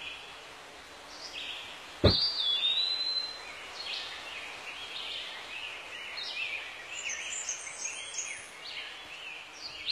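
Songbirds singing outdoors, a busy mix of short chirps and trills. About two seconds in there is a sudden sharp click, followed by a held high whistle-like note lasting about a second and a half.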